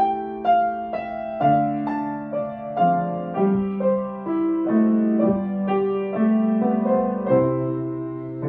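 Solo grand piano playing a slow, gentle piece: held chords in the middle and low range under a melody of struck notes that come about twice a second and ring on as they fade.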